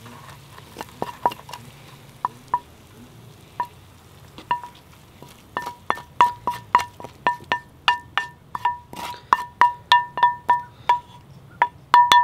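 Wooden spatula scraping and knocking fried rice out of a frying pan onto a plate, each knock giving a short metallic ring. The knocks are sparse at first, then come about three a second from about halfway through.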